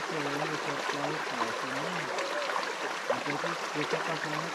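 Shallow forest stream running and trickling over rocks, a steady splashing rush, with a person's voice talking at times over it.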